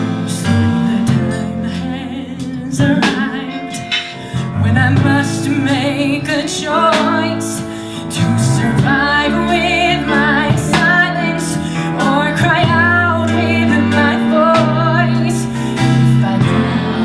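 A woman singing a song over instrumental accompaniment.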